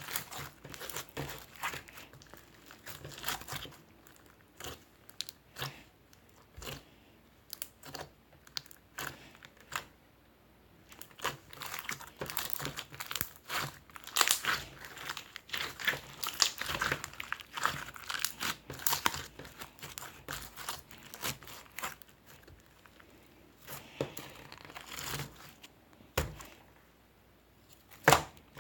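Irregular crinkling and crackling of something being handled, in quick uneven clusters of sharp crackles, with brief lulls about ten seconds in and near the end.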